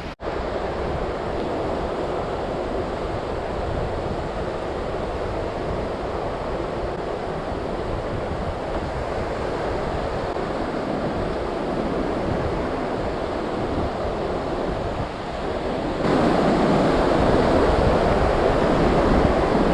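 Gulf of Mexico surf washing onto the beach, with wind rumbling on the microphone. The sound steps up louder for the last few seconds.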